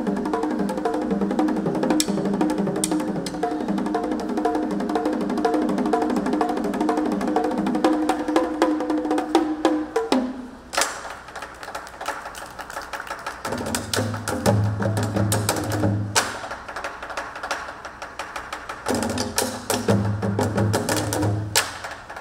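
Women's percussion ensemble playing a fast, even rhythm on a set of red tuned drums over sustained backing music. About ten seconds in, the held music drops away, leaving sharp, spaced stick strikes and two stretches of deep, low drumming.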